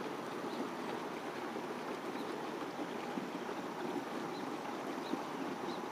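Motorboat under way at low speed on calm water: a steady, even rush of engine and water noise with no clear pitch.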